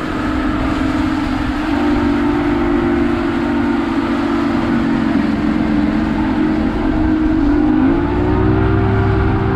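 Boat's outboard motor running under way, a steady whine whose pitch steps up about two seconds in and rises again near the end as the throttle comes up, with a deeper rumble growing at the end, over water rushing along the hull.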